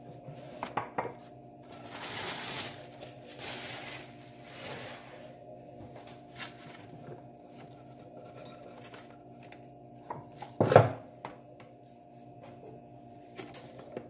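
Unboxing handling noises: plastic packing rustling, with light clicks and knocks as a ceramic cup and a small plastic coffee maker and its cord are handled on a stone countertop. One sharper knock comes about ten and a half seconds in.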